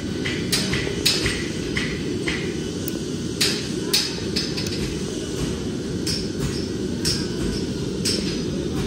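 Irregular sharp hammer strikes on steel, roughly one or two a second, with a short ring, from farrier work in the shop, over a steady low rumble.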